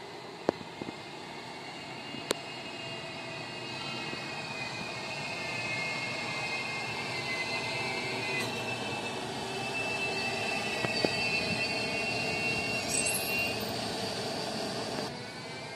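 Electric freight locomotive hauling car-carrier wagons past: a rolling rumble that grows louder as the train draws near, with high whining tones over it for several seconds. Two sharp clicks sound in the first few seconds.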